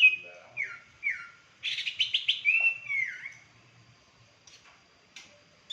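A freshly wild-caught songbird singing: a few short whistles sliding downward and a quick run of chirps over the first three seconds, then two brief chirps near the end.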